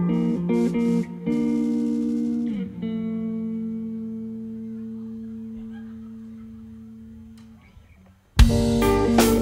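Live rock band: electric guitar and bass chords with cymbal hits, then a chord left to ring and slowly die away over about five seconds. Near the end the full band with drums crashes back in loudly.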